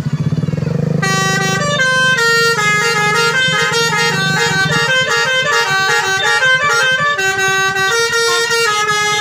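Bus telolet horn (Basuri multi-tone horn) playing a tune of stepped chords, starting about a second in. The bus engine runs underneath and fades out about halfway through.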